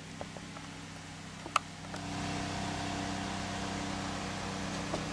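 A steady low mechanical hum with a single sharp click about one and a half seconds in; the hum grows louder about two seconds in and then holds steady.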